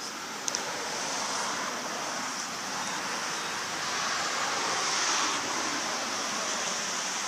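Steady rushing outdoor background noise that swells slightly around the middle, with a small click about half a second in.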